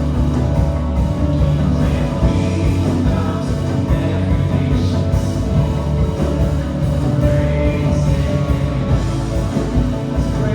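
Live church worship band playing a full-band song at a steady loud level, with singing over it.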